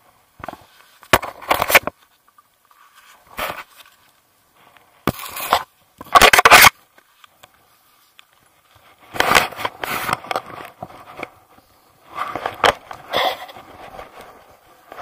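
Bursts of rustling and scraping right against a body-worn camera's microphone as jacket fabric and a climbing skin are handled during a ski-touring transition, in about eight short bouts with quiet gaps, the loudest a little past the middle.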